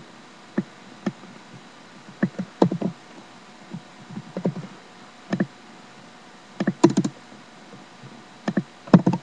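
Computer keyboard being typed on: irregular single keystroke clicks and short clusters of them, with pauses between.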